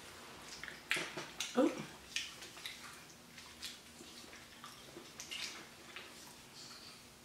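Eating sounds at a table: scattered soft clicks and mouth smacks of chewing and handling food. The louder clicks come about one to two seconds in, with a short rising tone at about one and a half seconds.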